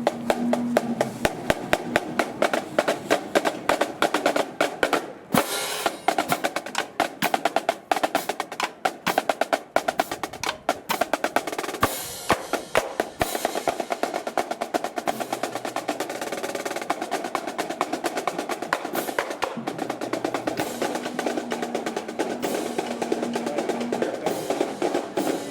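Marching band drum line playing a cadence: rapid snare drum strokes and rolls.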